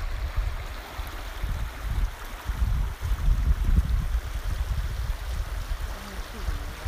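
Rain-swollen creek running over rocks: a steady rushing hiss with an uneven low rumble underneath.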